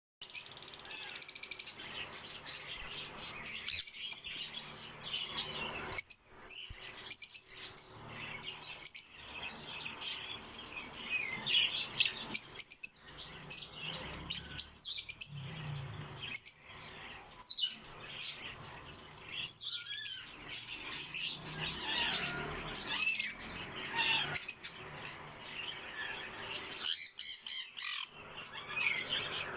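Lovebirds chirping, many short high calls and sharp chirps overlapping with no break, with brief wing flutters.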